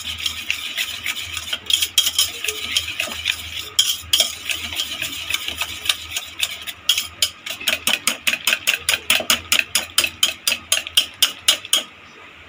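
Wire whisk beating egg mixture for an omelette in a stainless steel bowl, the wires clicking against the metal in a quick steady rhythm of about five strokes a second. The whisking stops just before the end.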